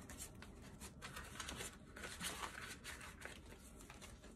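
Faint rustling and soft crinkling of paper banknotes being handled and slipped into a cash binder's envelope pocket.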